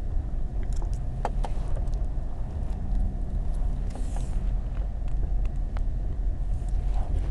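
A car engine idling steadily at a standstill, heard from inside the cabin as a low hum. A few light clicks and rustles come from a ketchup packet and burger wrapper being handled.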